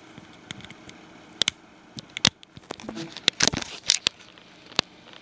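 Scattered sharp clicks and knocks of handling as a USB cable is plugged back into an Android phone, with the loudest cluster a little past the middle.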